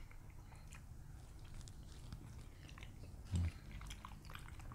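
Faint, wet chewing and small mouth clicks of people eating food, with a short low hum about three and a half seconds in.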